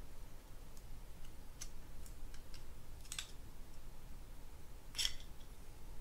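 Metal screwdriver tip clicking and scraping against a Penn Spinfisher 704Z reel body while prying off the round cover over its front screws: a few faint scattered clicks, then a louder click about five seconds in as the cover comes free.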